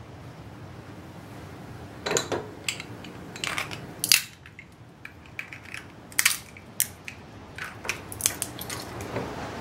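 Walnut shells cracked open one after another with a small hand tool on a plastic cutting board: a series of sharp, irregular cracks and crunches that start about two seconds in.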